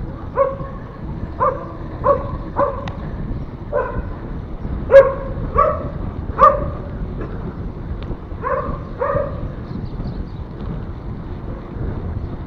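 A dog barking repeatedly, about ten short barks in irregular runs, the loudest about five seconds in. Under it runs a steady low rush of wind and road noise from the moving bicycle.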